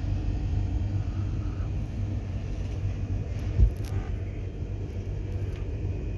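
A steady low rumble, with one short thump about three and a half seconds in.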